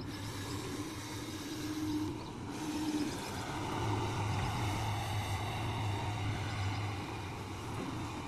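Heavy diesel engine of an excavator at work, running steadily, its note changing about three to four seconds in.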